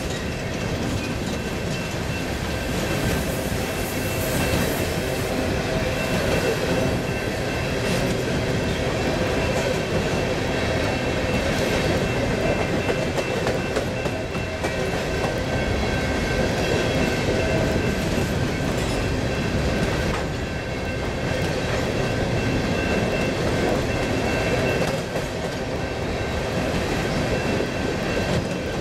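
BNSF freight train cars rolling past, a steady rumble with the wheels clicking over rail joints and a thin high squeal.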